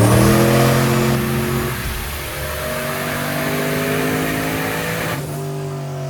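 Turbocharged 6.0-litre Chevy V8 running hard at high revs, its pitch climbing. A broad rushing noise over the engine note falls away about five seconds in, leaving the engine tone running on.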